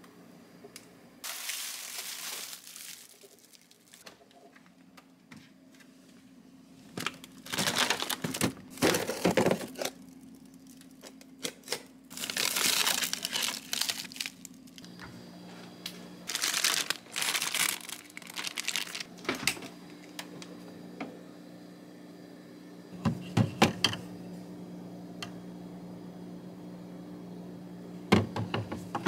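Plastic food packaging crinkling in several bursts as bags are rummaged through and pulled out of a freezer drawer. There are a few sharp taps near the end, and a steady low hum runs underneath from about halfway.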